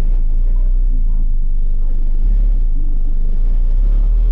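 Loud car-audio bass demo from six Sundown Audio 15-inch subwoofers in a Jeep, in a fourth-order enclosure tuned to 43 Hz. A deep, steady bass note dominates, with muddy music above it.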